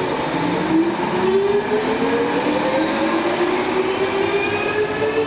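Stockholm Metro C14 train pulling out of the station, its traction motors giving a whine that rises steadily in pitch as it accelerates, over the noise of wheels on the rails.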